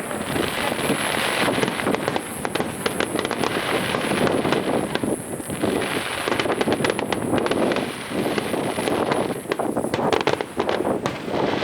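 Fireworks starmine barrage: shells bursting in rapid succession with dense crackling. The sound swells and eases in waves every few seconds.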